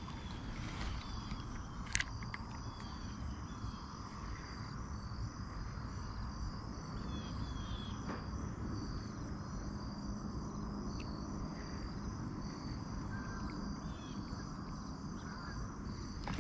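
Steady chorus of crickets trilling over a low rumble, with a single sharp click about two seconds in.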